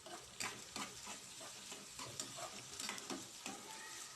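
A spatula stirring and scraping onions and tomatoes sautéing in oil in a pan. There are irregular light scrapes and taps over a faint sizzle.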